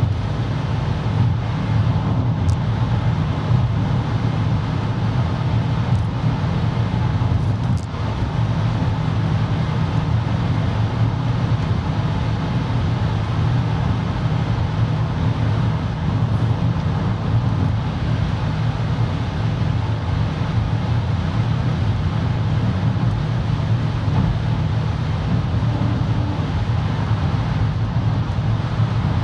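Steady low rumble of a car's tyres and engine at motorway speed, heard inside the cabin while driving through a road tunnel.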